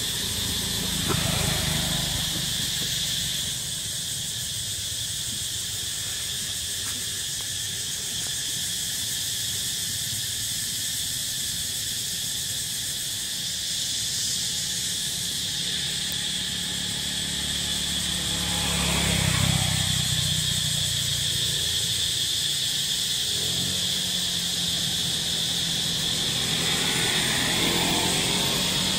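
Steady, shrill insect chorus over a low background rumble, with three louder swells of noise: about a second in, about two-thirds of the way through, and near the end.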